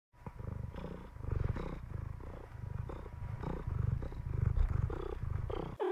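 A cat purring close to the microphone, a low, finely pulsing rumble that swells and fades in waves with its breathing, ending in a brief pitched sound that bends down and back up.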